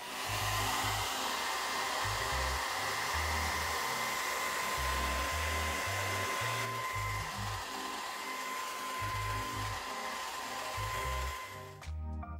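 Hand-held hair dryer blowing hot air onto glued shoe soles to reheat the glue for bonding, a steady rush of air with a steady high whine. Its hiss softens a little past halfway, and it switches off near the end.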